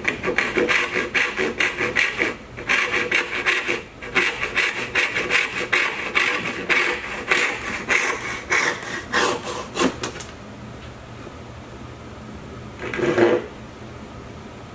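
Hand saw cutting a tenon into the end of a wooden leg, in quick, even back-and-forth strokes with a couple of brief pauses. The sawing stops about ten seconds in, and a short scraping burst follows near the end.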